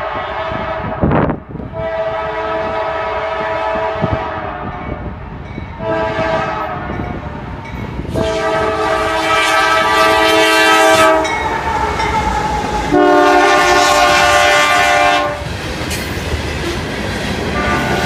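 Diesel freight locomotive's five-chime Nathan K5LA horn, sounding a series of long blasts with short gaps between them as the train approaches and passes. Under it runs the rumble and wheel clatter of the train on the rails.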